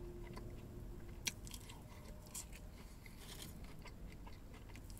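Faint chewing of French fries, with a few small crunches and clicks from the mouth, the clearest about a second in.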